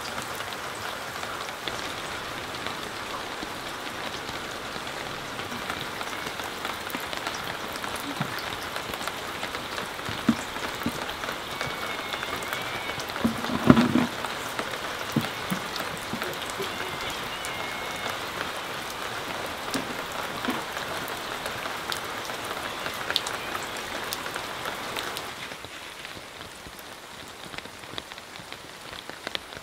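Rain falling: a steady, even patter with scattered sharper drops and one louder knock about 14 seconds in. The rain sound drops to a lower level about 25 seconds in.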